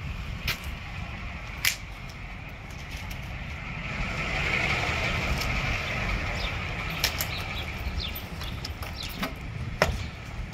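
Street ambience: a low rumble of wind on the microphone, a vehicle swelling past in the middle, and a few sharp clicks, the loudest near the end as a car door is opened.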